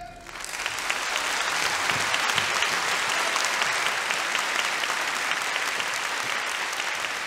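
Audience applause in a concert hall, starting right after the orchestra's last note dies away and building within about a second to steady, dense clapping.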